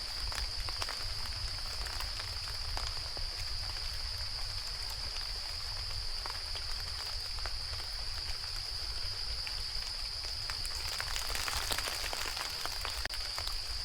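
Gentle rain falling on bamboo, with scattered drops ticking on the leaves and a steady high-pitched tone throughout. The patter grows denser and louder near the end.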